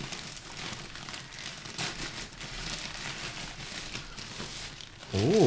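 Black plastic mailer bag crinkling and rustling in irregular bursts as hands tear it open.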